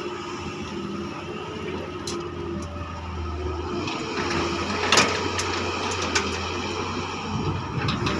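Doosan DX140 wheeled excavator's diesel engine running under hydraulic load as the boom swings the bucket, with a few sharp clanks, the loudest about five seconds in.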